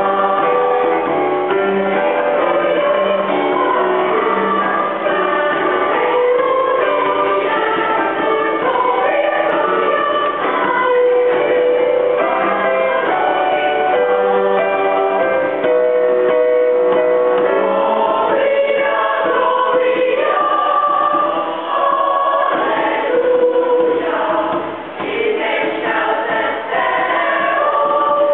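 A children's choir singing, with some long held notes.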